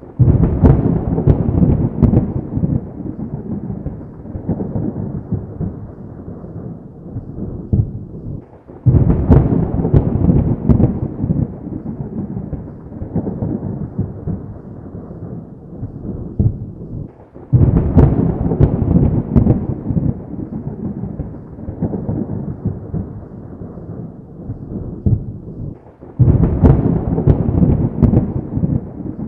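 Thunder: four sudden loud cracks, about every nine seconds, each breaking into a low rumble that fades away over several seconds.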